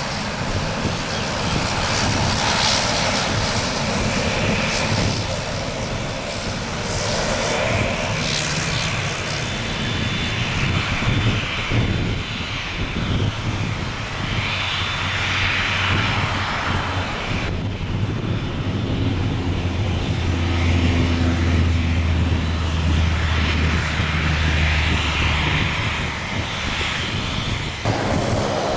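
Airbus A340-300's four CFM56-5C turbofans running at taxi power: a steady jet whine and rumble. A low drone grows stronger over the last third, and the sound changes abruptly twice.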